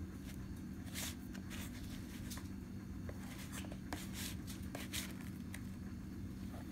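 Handling noise: a few soft rustles and light scrapes, a little stronger about a second in and again around four to five seconds in, over a steady low hum.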